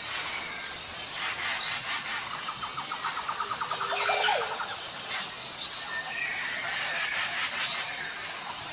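Wild forest ambience: a steady high insect drone under scattered chirping bird calls, with a fast run of squeaky notes near the middle.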